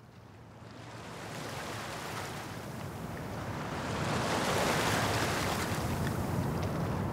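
Water-and-wind ambience: a rushing noise like surf that fades in and swells, loudest about two-thirds of the way through.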